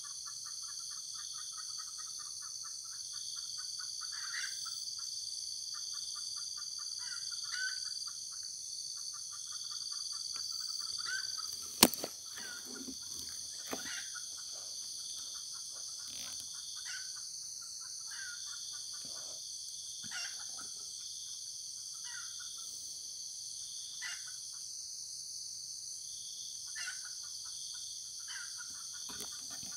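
Forest insects droning steadily at a high pitch, with stretches of rapid pulsing trills through the first eleven seconds and scattered short chirps later. A single sharp crack, the loudest sound, comes about twelve seconds in.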